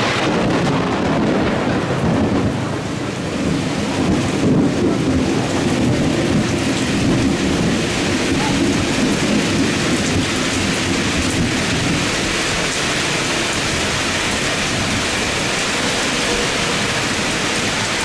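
Heavy rain and wind noise with the low rumble of an Airbus A330's jet engines as it touches down and rolls out on a wet runway. The rumble swells about four seconds in and eases after about ten seconds, while the rain hiss runs on steadily.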